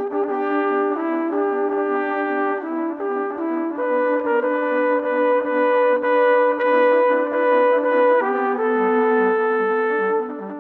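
Four trumpets playing in harmony, holding long sustained chords that change every second or so at first, then a long held chord from about four seconds in until about eight, then one more.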